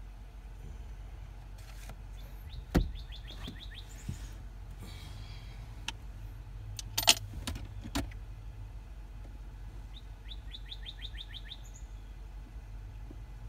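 A bird calling twice, each time a quick run of about eight to ten short chirps. Under it runs a steady low rumble, and a few sharp clicks and knocks sound, the loudest about seven seconds in.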